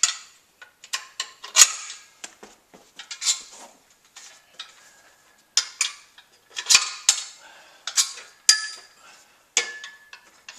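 Metal clanks and clinks from the steel legs and locking pins of a portable exercise rack being handled: pins pulled and pushed back in and legs folded up. It comes as an irregular run of sharp knocks, some ringing briefly.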